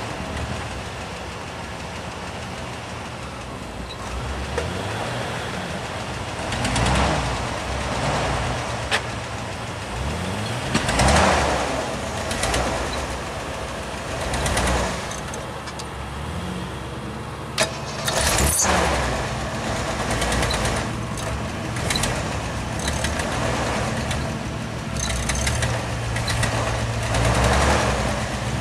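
Off-road 4x4 truck engine revving up and falling back again and again while driving through snow. A rushing noise swells with each rev, and there is a sharp knock about two-thirds of the way through.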